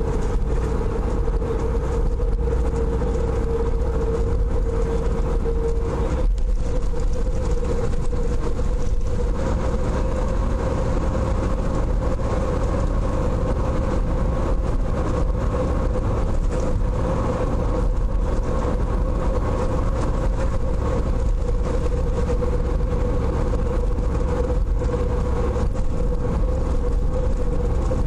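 Steady road and engine noise of a car being driven, heard from inside the car: a low rumble with a constant hum whose pitch steps up slightly about six seconds in.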